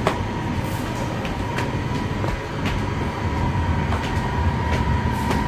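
Shopping-mall escalator running: a steady low rumble with a faint steady whine and irregular light clicks.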